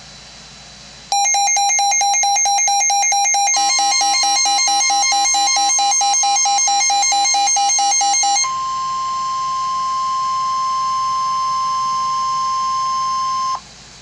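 Weather radio severe-thunderstorm alert: rapid pulsing alarm beeps start about a second in, then the steady single-pitch NOAA Weather Radio warning alarm tone comes in underneath. The beeps stop about eight seconds in and the steady tone holds alone until it cuts off abruptly near the end, leaving a faint hiss.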